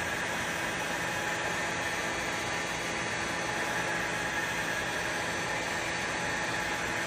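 Heat gun blowing steadily, shrinking heat-shrink tubing over a crimped wire splice: an even hiss with a faint high whine.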